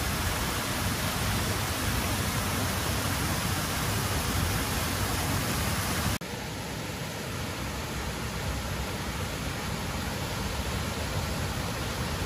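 A steady rushing hiss with no distinct events. About six seconds in it cuts abruptly to a slightly quieter, duller stretch of the same kind of noise.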